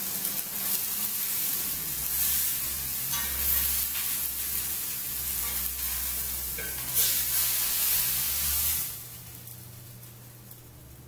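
Hot fat and drippings sizzling in the pan used to sear a chuck roast, on a gas burner that is still lit, with a few light clinks of cookware. The sizzle dies down sharply near the end.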